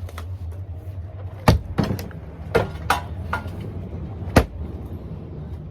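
Sledgehammer blows against a spa being torn down: about six heavy, uneven strikes, some in quick pairs, each with a short hollow ring, over a steady low rumble.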